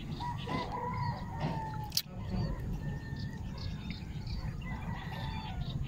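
A rooster crowing once, a drawn-out call that falls at the end, over small birds chirping here and there and a steady low rumble. One sharp click about two seconds in.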